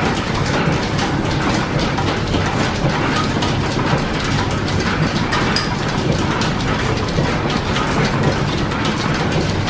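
Line-shaft-driven engine lathe running while turning down a 4140 steel blank: a steady mechanical clatter with fast, dense ticking from the belts and gearing over a low hum.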